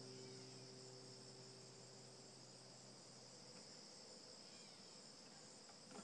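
The last notes of a nylon-string classical guitar ring and die away over the first two or three seconds. A steady, faint chirring of crickets carries on throughout.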